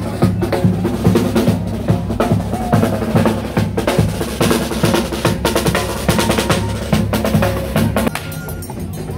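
Masquerade drum band playing: a big bass drum and a snare drum beating a fast, steady rhythm. The drumming falls away near the end.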